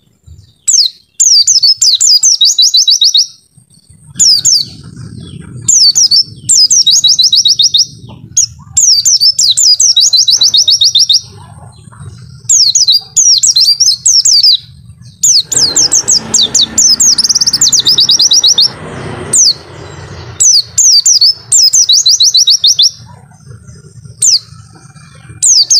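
White-eye (pleci) song: loud, high, fast twittering phrases of rapid trills, each a second or two long, repeated with short gaps. A low hum runs underneath from about four seconds in, with a brief wash of noise in the middle.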